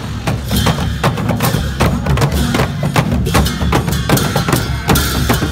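Several large double-headed barrel drums, slung from straps and struck by hand, beating a fast, steady rhythm with deep booming strokes.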